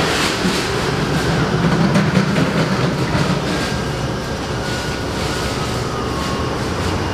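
Commercial Speed Queen washers and dryers in a laundromat running together, a loud, steady mechanical drone with a low hum and faint ticks.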